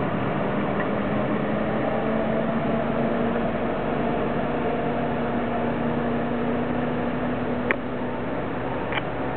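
1944 Willys MB jeep's four-cylinder flathead engine running steadily as the rail-mounted jeep moves away along the track. Two sharp clicks come near the end, the first the loudest moment.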